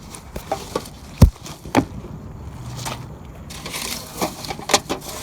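Irregular knocks, clicks and scrapes, with one sharp thump about a second in.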